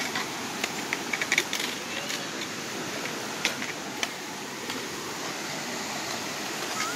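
Muddy creek running high after rain, rushing steadily, with a scatter of sharp clicks and taps, most of them in the first two seconds.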